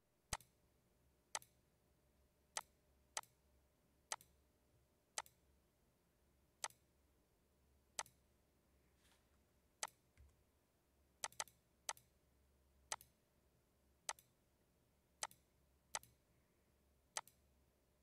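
Computer mouse clicking: single sharp clicks roughly once a second, with a quick double click about eleven seconds in, over a faint low hum.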